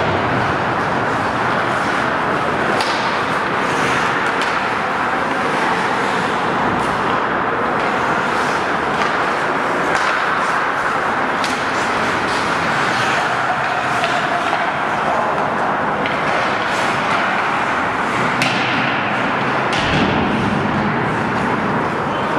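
Ice hockey play on an indoor rink: a steady hiss of skate blades on the ice, broken by scattered sharp clacks of sticks and puck.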